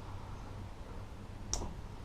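A single sharp click about one and a half seconds in, over a low steady hum, as the stuck gear in a Losi MTXL rear differential is worked on by hand.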